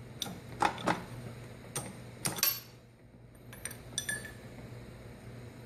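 A series of sharp metal clinks and taps, several ringing briefly, from tooling being handled while the end mill is taken out of an old M-head milling machine's spindle to swap in an edge finder. A low steady hum runs underneath.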